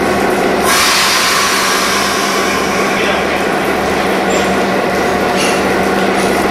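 DBR-class diesel-electric locomotive idling with a steady hum and a pulsing low rumble. A sudden loud hiss of air breaks in about a second in and fades away over the next couple of seconds.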